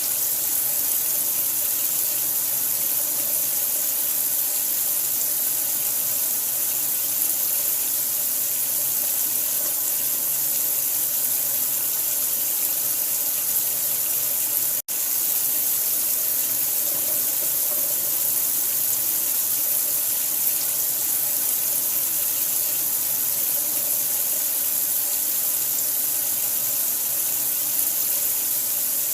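Steady running water, a continuous hiss used as sleep sound for a newborn. It cuts out for an instant about halfway through.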